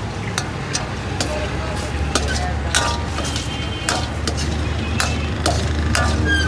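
Steel ladle striking and scraping an iron wok, about twice a second at uneven spacing, as chicken is stir-fried, over a steady low hum.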